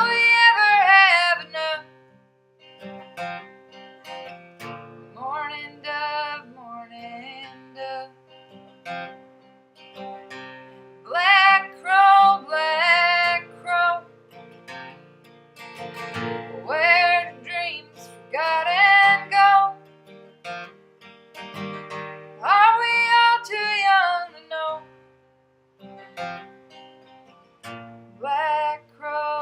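Acoustic guitar picked and strummed, with a woman singing in phrases a few seconds long and instrumental gaps between them.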